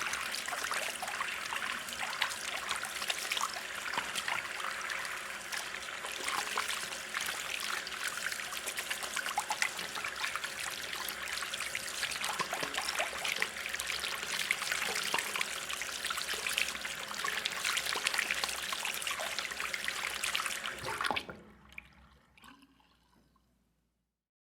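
Hands being washed with soap under running water: a steady trickle with many small wet splashes and rubbing sounds. The water stops suddenly about three seconds before the end, and a few faint sounds trail off into silence.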